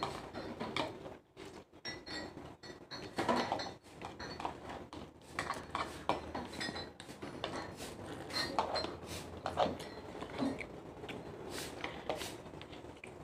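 Cutlery and dishes clinking during a meal: a metal fork tapping and scraping on a plate of rice and plastic bowls, in irregular small clicks.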